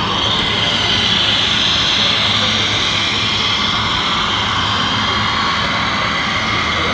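Steady high whine of a radio-controlled model's electric drive, drifting slightly up and down in pitch over a low hum.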